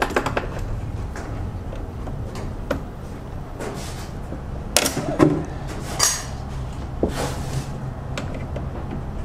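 Pliers working a stiff spring-type radiator hose clamp: a few sharp metallic clicks and scrapes, grouped between about 4.5 and 7.5 seconds, over a steady low hum.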